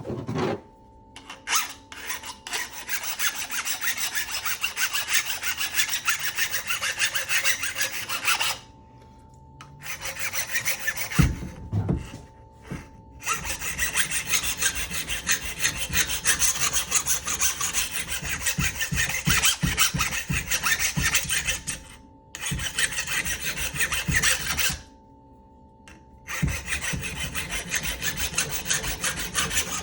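Drill-powered sharpening attachment grinding against the edge of a lopper blade with a harsh, rasping scrape. It comes in several passes of a few seconds each, broken by short pauses as the blade is lifted and repositioned.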